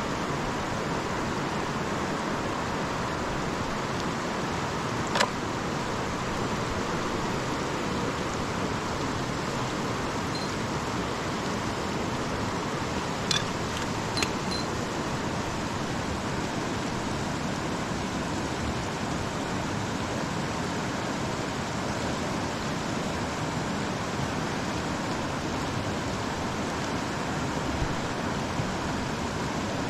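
Steady rush of a big, fast-flowing river, with a few brief clicks: one about five seconds in and two close together near the middle.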